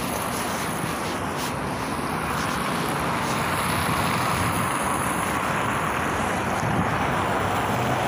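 Road traffic noise with wind on the microphone, growing a little louder as a Volgabus 5270G2 natural-gas city bus draws up to the stop near the end.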